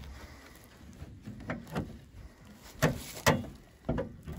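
A gloved hand working the safety catch under the front edge of an ice-covered car hood: a series of separate clicks and knocks, about seven in all, with quiet between them.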